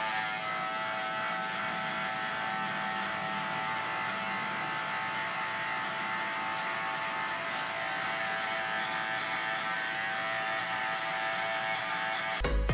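Cordless electric hair clipper running with a steady buzz as it cuts hair. Music with a drum beat comes in near the end.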